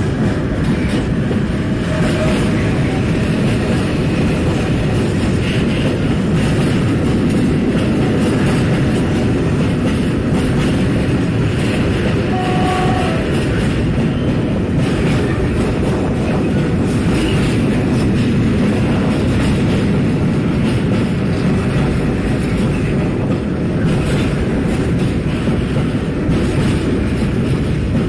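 A long freight train of rail tank wagons passing close by: a steady rolling noise of steel wheels on the rails, with occasional clicks.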